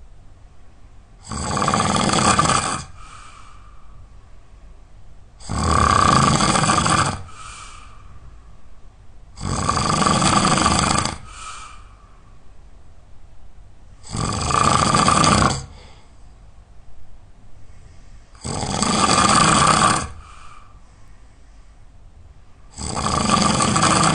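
A sleeping person snoring really loud in a slow, regular rhythm: about six snores, one roughly every four seconds, each lasting about a second and a half, with a faint breath after each.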